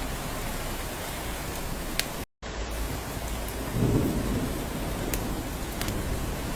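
Steady rain with scattered sharp drip ticks and a short low thunder rumble about four seconds in. The sound cuts out completely for a split second a little after two seconds.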